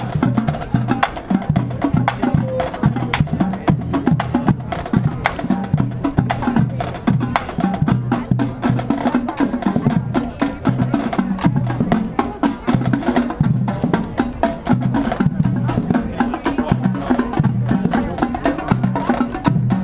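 Marching drumline playing a busy percussion groove: rapid clicking strikes over drums, heard steadily throughout.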